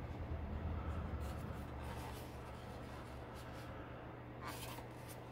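Hands handling a lightweight plastic statue, with faint rubbing and scraping as it is lifted and turned, a low rumble of handling in the first two seconds and a brief scrape about four and a half seconds in.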